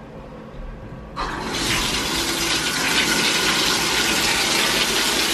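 Bathtub faucet turned on about a second in: water starts suddenly and then runs from the tub spout into the tub in a steady rush.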